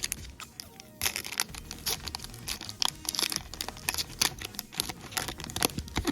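Trading-card booster pack wrapper being crinkled and torn open by hand: a dense run of irregular crackles that starts about a second in.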